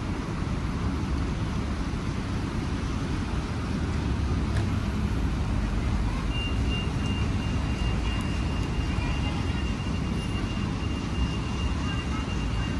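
Steady low rumble of city street traffic, with a faint high steady tone entering about halfway through.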